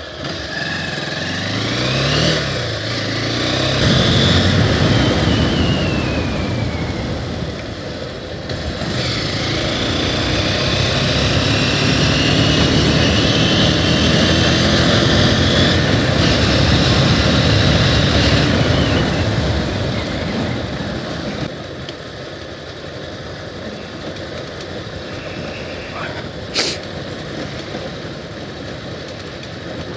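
Bajaj Pulsar 220F motorcycle's single-cylinder engine pulling away and revving up through the gears, with wind noise on the microphone as it rides. It runs louder at speed for much of the time, then eases to a lower level for the last third, with one sharp click near the end.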